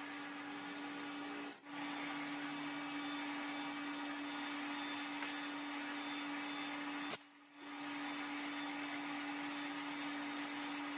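A metalworking machine tool's motor running steadily, with a constant hum and a hiss. The sound cuts out briefly twice, about one and a half seconds in and about seven seconds in.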